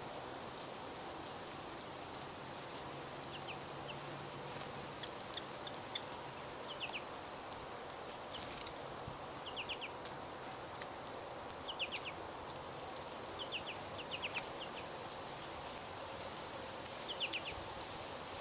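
Small songbirds chirping: short calls in quick clusters of two or three notes, repeated irregularly every second or two, over a steady outdoor hiss.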